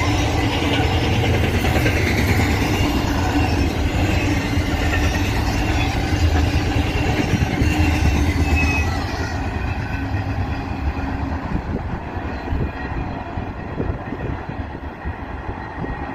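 Norfolk Southern intermodal freight train's container well cars rolling past at close range: a steady rumble and clatter of wheels on the rails, with a brief high squeal about halfway through. The sound grows quieter and duller in the second half as the end of the train goes by.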